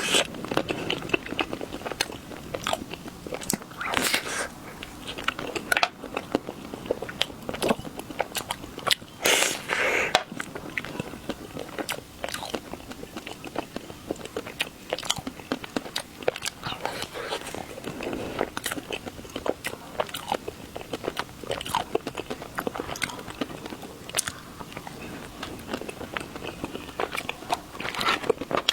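Close-miked biting and chewing of Millennium chocolate: crisp, crunchy bites followed by crackling chewing, with louder bites about four seconds in, around ten seconds, and near the end.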